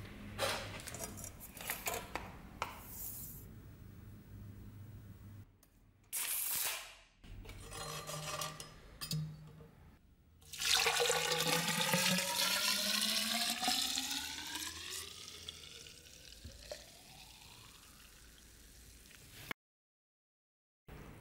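Liquid rust remover poured from a jar into a rusty metal cylinder holding the scabbard fittings: a splashing pour whose pitch climbs as the vessel fills, settling into a fizzing hiss as the acid works on the rust. In the first half, a few knocks and clinks of metal parts being handled.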